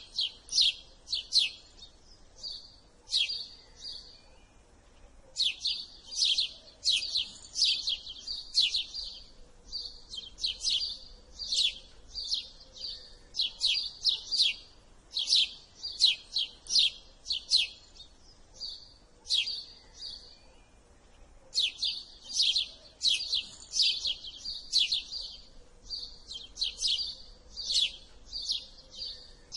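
House sparrow chirping: short, sharp chirps repeated rapidly in long runs, broken by brief pauses.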